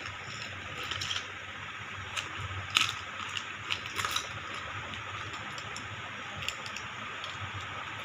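Clear plastic bag crinkling and rattling as it is handled, with the small parts inside clicking: a cluster of sharp crackles between one and four seconds in, the loudest near three seconds, over a steady hiss.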